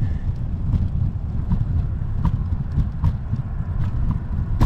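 Wind buffeting a bicycle-mounted GoPro's microphone while riding, a steady low rumble, with light ticks about every three-quarters of a second.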